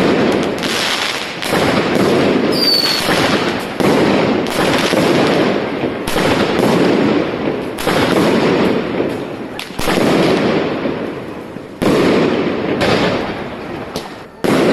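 Aerial fireworks bursting: a loud bang every one to two seconds, each trailing off in a long echoing rumble, with a brief high whistle about two and a half seconds in.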